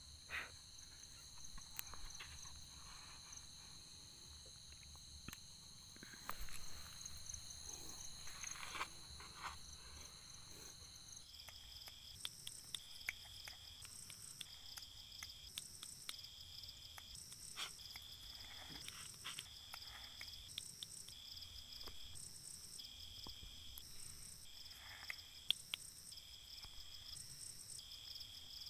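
Night insects chirping: a steady high trill for the first ten seconds or so, then rhythmic chirping pulses about once a second, with scattered faint scuffs and clicks.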